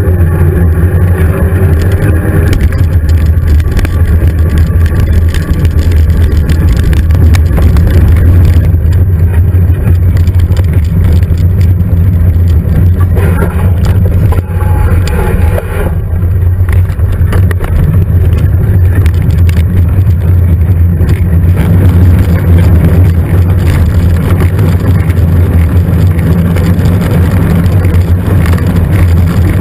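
Steady, loud wind buffeting and rumble on the microphone of a GoPro Hero 2 carried on a mountain bike, mixed with tyre noise on a dirt track.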